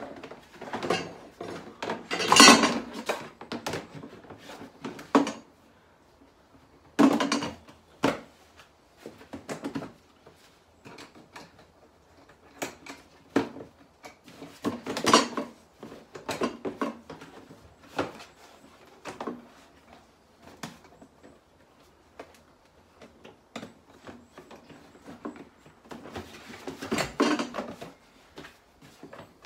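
Hollow green plastic parts of a Bosch Rotak 34-13 lawnmower's grass box being handled and pushed together, knocking and clattering irregularly, with a few louder knocks spread through.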